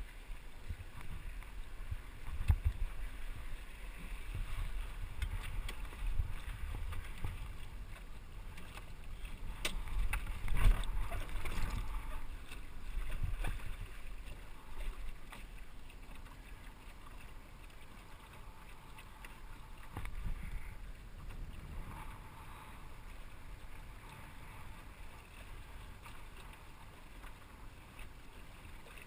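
Water washing along the hull of a small sailing dinghy under way, with wind buffeting the microphone. A few sharp knocks come through, the loudest about ten seconds in.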